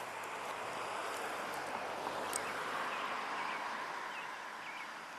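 Outdoor background: a steady rushing noise that swells toward the middle and eases again, with a few faint bird chirps.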